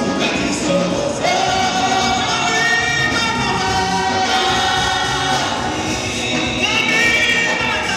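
Gospel choir singing together, holding long notes, with a male lead singer on a microphone in front.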